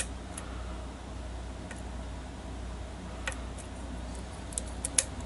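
A lock pick working the pins inside a challenge lock under tension: a few faint, sharp metallic ticks at irregular intervals, several close together near the end, over a steady low hum.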